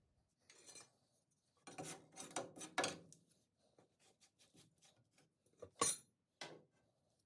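Faint brushing and scraping strokes from sweeping debris out. A quick cluster of strokes comes in the first few seconds, then sparser soft scrapes, and a sharp tick and a softer one near the end.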